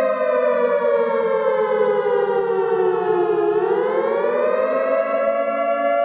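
Civil defense siren wailing: a held tone slides down in pitch over about three seconds, then climbs back up to full pitch within about a second and a half and holds steady.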